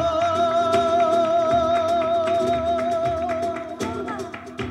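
Live flamenco guajira: a singer holds one long wavering note over flamenco guitar and percussion, letting it fall away about four seconds in, with sharp percussive clicks throughout.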